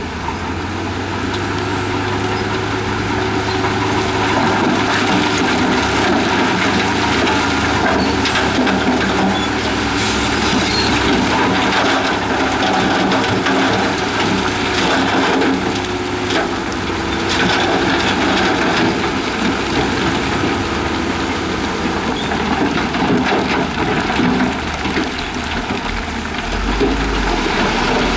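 Heavy diesel earthmoving machinery running steadily under load, with rock and soil crunching, cracking and scraping throughout.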